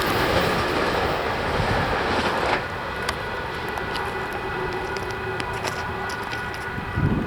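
Amtrak passenger train passing at speed: a loud rush of wheels on rail that drops off suddenly about two and a half seconds in as the end of the train goes by. After that, a quieter stretch with faint steady high tones and light clicks.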